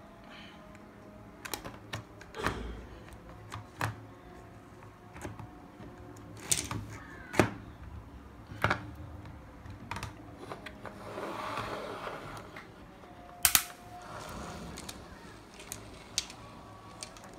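Irregular plastic clicks and knocks as a toy excavator and plastic building blocks are handled and bumped together on a wooden table, with a short scraping rustle about two-thirds of the way through.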